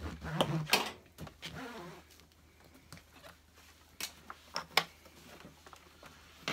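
Vacuum cleaner hose being handled and cleaned by hand: handling noise, louder in the first second or so, then a few sharp clicks and knocks about four and five seconds in.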